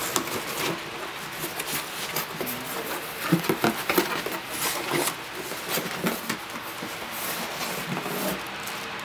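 Cardboard shipping carton being opened and unpacked: flaps scraping and rustling, with scattered taps and knocks as a shoebox is slid out.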